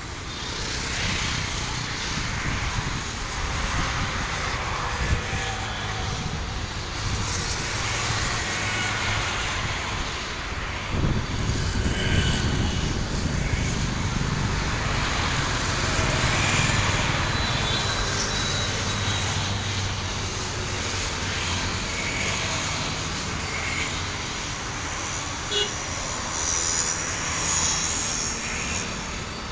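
Distant jet airliner engines running, a steady rumble that grows heavier and louder about 11 seconds in as an aircraft powers up for takeoff.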